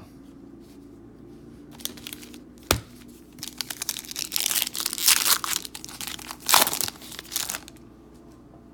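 Foil wrapper of a Panini Prizm basketball card pack being torn open and crinkled by hand: one sharp click a few seconds in, then about four seconds of crackling and tearing bursts.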